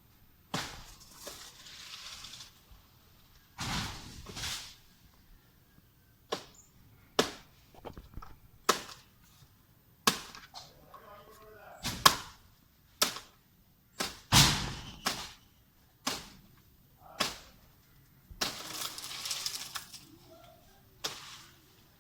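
Coconut tree being chopped with a blade: sharp single strikes at irregular intervals of about a second, with three longer bursts of rustling.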